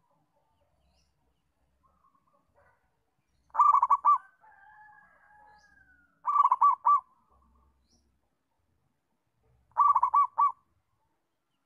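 Zebra dove (perkutut) cooing: three short bursts of rapid staccato notes, each under a second, spaced about three seconds apart, the first about three and a half seconds in.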